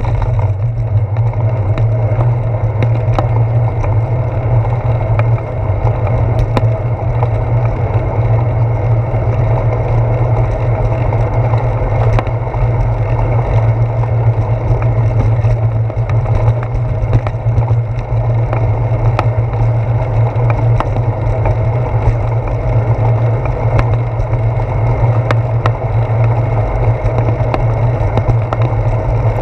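Steady wind and rolling rumble picked up by a handlebar-mounted GoPro Hero 4 as a bicycle rides along a concrete sidewalk. Scattered clicks and knocks come through as the bike rolls over bumps in the pavement.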